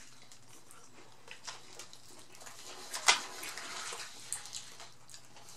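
Chewing a crunchy fried taco shell: scattered small crackles and mouth sounds, with one sharper crunch about three seconds in.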